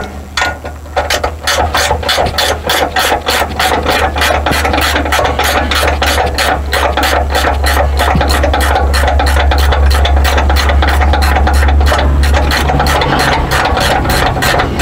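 Ratchet wrench clicking in a steady rhythm, about three clicks a second, as a nut is backed off a landing-gear mounting bolt. A steady low hum runs underneath and grows stronger in the second half.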